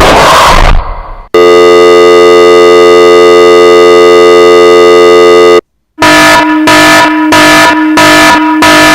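Sound-effect sequence: a short noisy burst dies away, then a loud electronic buzzer sounds one steady, harsh tone for about four seconds and cuts off. After a brief silence an alarm starts beeping in rapid pulses, about two a second.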